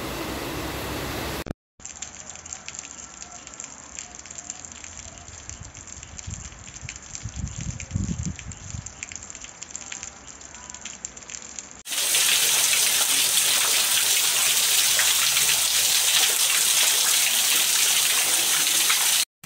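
Heavy rain, in three short clips. First a steady rain hiss, then a quieter stretch of water streaming and dripping off a roof edge with scattered sharp drip ticks. About twelve seconds in, a loud, even downpour splashing onto a paved yard takes over.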